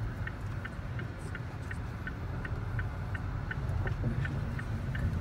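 Car driving slowly, heard from inside the cabin: a steady low engine and road rumble, with a light, regular ticking about three times a second.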